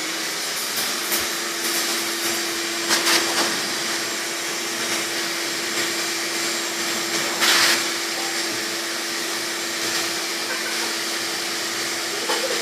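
Shop vacuum running steadily as a blower: a constant motor hum under rushing air, with brief louder gusts about three and seven and a half seconds in.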